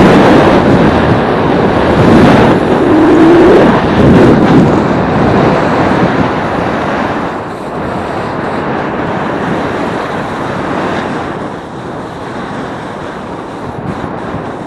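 Skis sliding and scraping over snow during a descent, mixed with wind rushing on the microphone; a steady loud noise that eases off from about seven seconds in.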